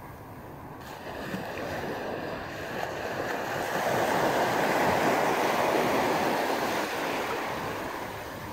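Small sea waves breaking and washing up the beach. One wash swells to its loudest about halfway through, then fades.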